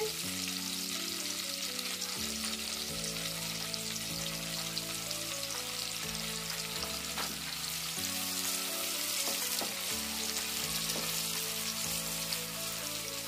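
Palm oil frying in a pot, a steady sizzle, over soft background music of sustained low chords.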